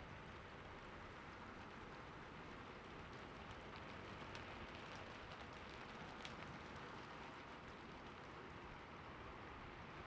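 Steady soft rainfall: an even, faint hiss with scattered sharp drop ticks, a few more of them in the middle stretch.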